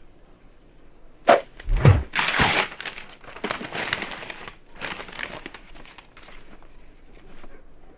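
Brown kraft paper wrapping torn open by hand: a few loud rips a little over a second in, then softer tearing and rustling as the paper is pulled away from a box.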